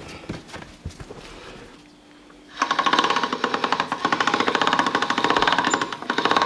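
Hand-cranked pasta machine rolling out a sheet of lasagne dough. After a few light knocks, a rapid, loud clicking rattle of its gears and rollers starts about two and a half seconds in as the crank is turned.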